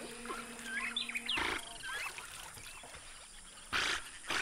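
Amazon rainforest ambience: short chirping wild-animal calls over a steady high hum. A brief noisy rush comes about a second and a half in, and two more near the end.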